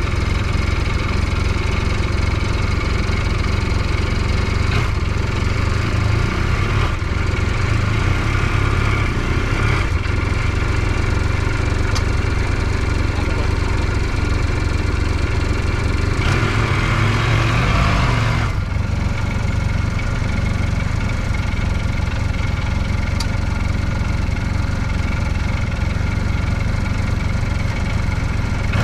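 UTV engine running steadily at idle. About sixteen seconds in it revs up for about two seconds, then drops back to idle.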